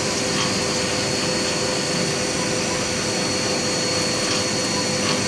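Haas CNC milling machine running a program on aluminum: a steady machine whine over an even hiss, with no change in speed or pitch.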